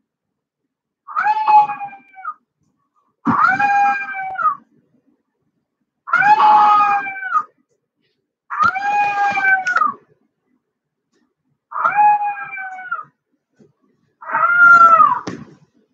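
Puppy howling: six drawn-out, slightly wavering calls, each just over a second long, with gaps of one to two seconds between them.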